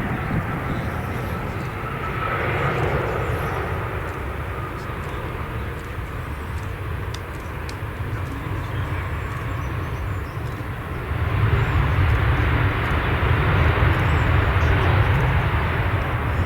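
Jet airliner engines of a Boeing 787-9 Dreamliner, a steady rush that grows louder about eleven seconds in.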